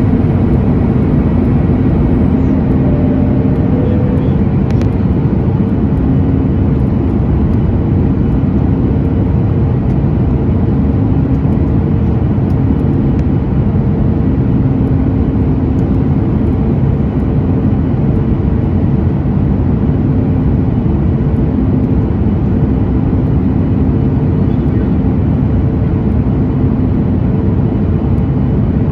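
Boeing 737 MAX cabin noise in flight: the steady drone of its CFM LEAP-1B turbofan engines and rushing airflow, with a low, even hum.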